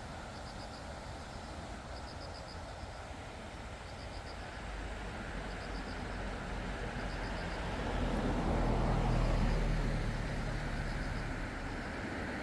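Grass insects chirping in short pulsed trills every second or two over the steady rush of flowing water. A vehicle engine passes by, swelling to become the loudest sound about two-thirds of the way through, then fading.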